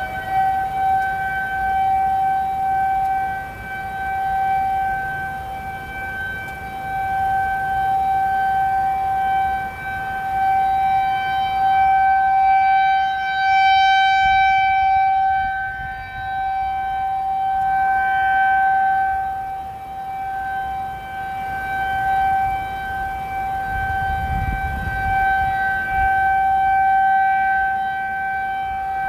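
Federal Signal 2001-SRN rotating outdoor warning siren sounding its steady alert: one unbroken tone with overtones that swells and fades every several seconds as the turning horn sweeps toward and away from the microphone.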